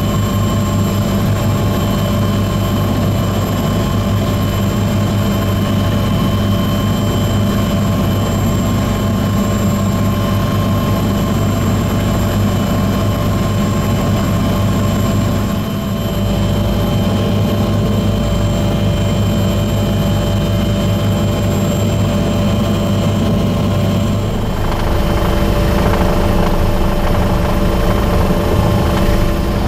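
Bell 429 GlobalRanger twin-engine helicopter in flight, a steady drone with a high whine above it, the tone shifting slightly near the end.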